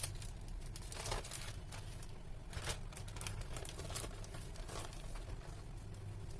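Irregular crinkling and rustling of parchment baking paper as hands handle it, in short scattered bursts over a low steady hum.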